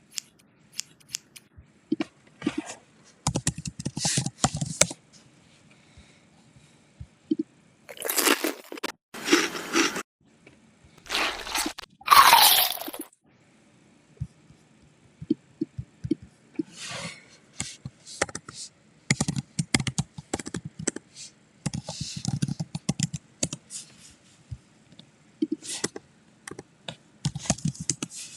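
A string of short sound-effect clips played one after another: crunching, scraping and cracking noises, with a louder burst that falls in pitch about twelve seconds in, and sharp clicks in between.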